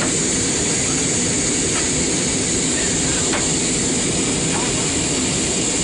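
Steady roar of an airliner cabin in flight: engine and airflow noise with a strong high hiss, unbroken throughout.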